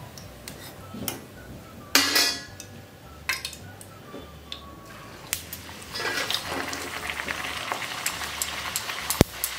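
A steel slotted spoon clatters against a steel kadai of hot oil a few times as a fried puri is lifted out. About six seconds in, a fresh puri goes into the oil, which starts to sizzle and bubble steadily. There is a sharp metal tap near the end.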